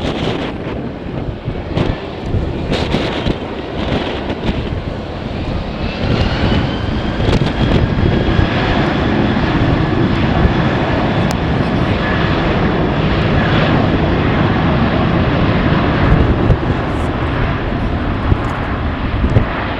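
Jet airliner engines, swelling about six seconds in and then holding loud and steady with a high whine over the rush, while strong wind buffets the microphone.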